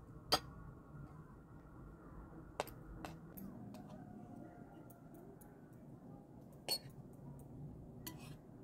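Spoons clinking against plates as two people eat: about five short, sharp clinks, the loudest just after the start and again near the end, over a faint low background.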